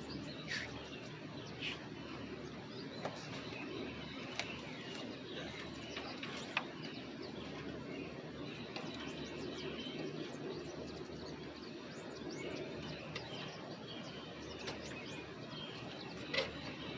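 Birds chirping here and there over a steady low background noise, with a few sharper high chirps standing out.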